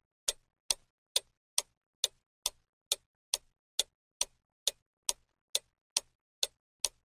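Clock-ticking sound effect: crisp, evenly spaced ticks, a little over two a second, with silence in between, timing the pause given to answer a quiz question.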